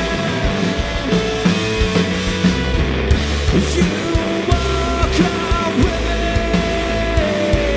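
Live rock band playing loud: electric guitar and electric bass over a steady drum beat, with long held guitar notes.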